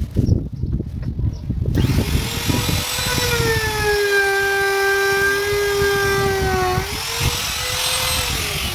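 Compact electric trim router switched on about two seconds in after a few handling knocks, its high motor whine spinning up. Its pitch drops and holds lower while the bit cuts along the edge of a hardwood cutting board, rises again when it is lifted clear, and begins to wind down near the end.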